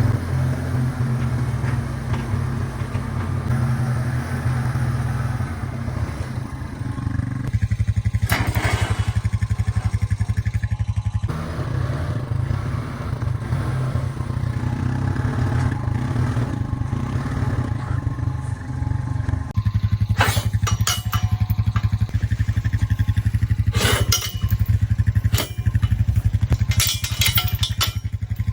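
Honda four-wheeler's engine running steadily under load as it tows a bale unroller, with clattering knocks about eight seconds in and several more in the last third.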